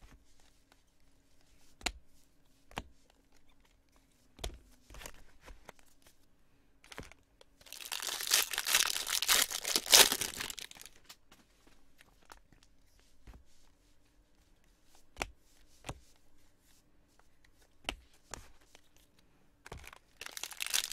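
Foil wrapper of a Bowman Jumbo card pack being torn open, a loud crackling tear lasting about three seconds in the middle. Before and after it come scattered light clicks of cards being handled, and the wrapper crinkling starts again near the end.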